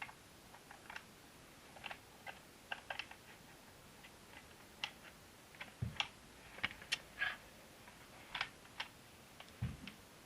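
Irregular plastic clicks and taps with a couple of soft low thumps, from handling the View-Master virtual reality viewer's phone clamps and adapter while fitting a phone into it.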